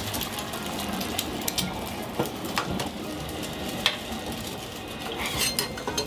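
Eggs sizzling as they fry in a steel egg ring on a flat-top griddle, with several sharp metallic clinks and knocks, most of them in the second half.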